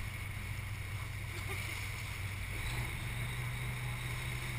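Fishing boat's engine running with a steady low drone, its pitch stepping up slightly about halfway through, over a steady hiss of wind and water.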